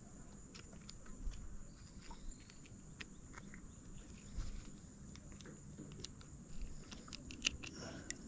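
Faint lakeside ambience on a summer evening: a steady high-pitched insect drone, with scattered small clicks and ticks, several close together about seven seconds in.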